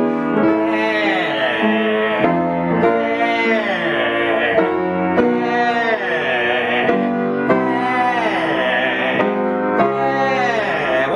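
A voice singing a warm-up exercise on the open vowel "air", holding a note and then sliding down in pitch, over and over about every two seconds, over piano chords.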